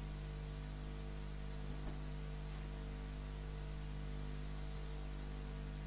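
Steady low electrical hum with a faint even hiss: background noise of the recording, with no other sound apart from a tiny tick about two seconds in.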